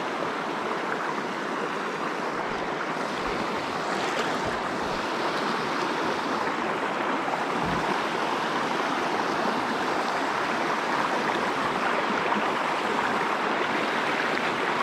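Shallow, rocky trout river running through riffles: a steady rush of flowing water.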